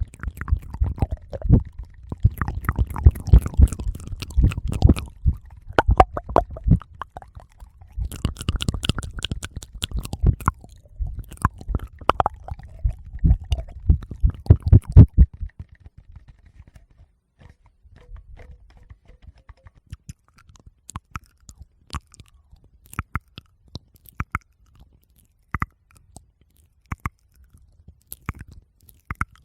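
Close-up fingers rubbing and tapping a Tascam recorder's microphones, making heavy low rumbling and dense clicking for about the first fifteen seconds. After that come sparse, scattered small clicks.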